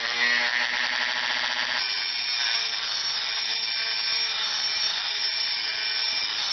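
Dremel rotary tool with a stone grinding wheel sharpening the steel cutting edge of a lawn mower blade: a steady high-speed grinding whine, its tone shifting about two seconds in.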